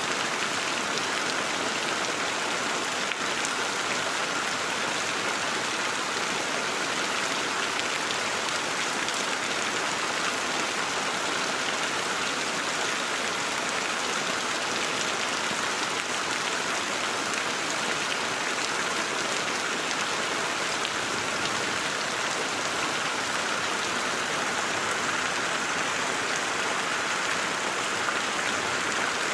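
Heavy rain falling steadily on broad plant leaves and wet ground, an even, unbroken hiss of drops.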